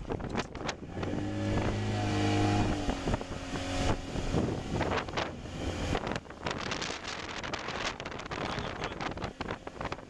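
A small boat's outboard motor running at speed through choppy water, with wind buffeting the microphone and repeated sharp knocks as the hull slaps the chop. The motor's steady drone comes through clearly from about one to three seconds in.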